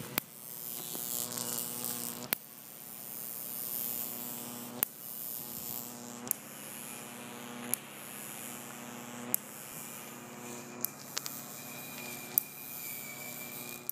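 A chain-reaction machine part knocking against a pair of upright rods as it moves between them: a sharp click about every second and a half, over a steady low hum.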